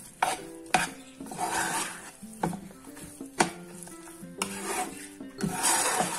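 Steel spoon stirring and scraping thick oats upma around a non-stick frying pan. There are about four sharp clinks as the spoon knocks the pan, between longer scraping swishes.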